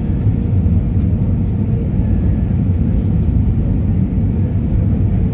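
Airbus A320 jet engines, a steady low rumble with a faint high hum over it, as the airliner comes in to land.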